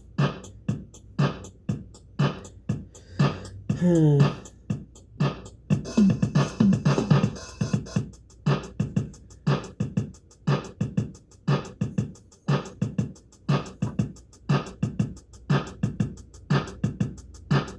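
An electronic keyboard's built-in auto-rhythm playing a drum-machine beat with steady, evenly spaced hits. A falling pitched sweep comes about four seconds in, and there is a busier fill from about six to eight seconds.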